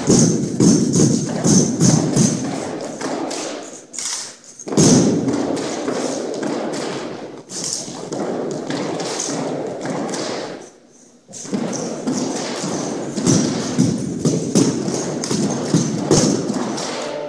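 An armed drill team's rifles and boots hitting a hardwood gym floor, with rifles slapped between hands: a fast, rhythmic run of thumps and sharp taps, broken by two short lulls, about four seconds and eleven seconds in.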